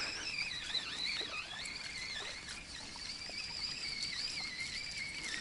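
Spinning reel being cranked while a hooked fish is wound in, its gears giving a steady whine that wavers in pitch with the speed of the winding.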